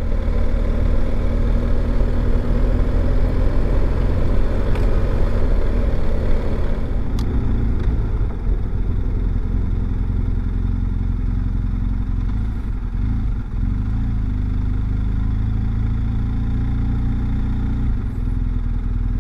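BMW R 1250 GS Adventure's boxer-twin engine running steadily at low road speed, heard from on the bike with wind and tyre noise; the wind noise drops about six seconds in as the bike slows.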